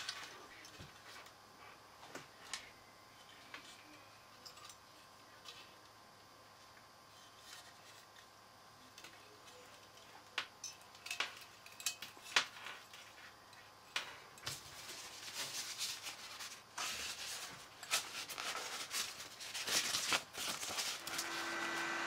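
Handling of a CPU cooler and PC power cables: scattered clicks, knocks and rustling of plastic and wires, busier in the second half. About a second before the end, a small cooling fan starts up with a steady whine as its lead is connected to power.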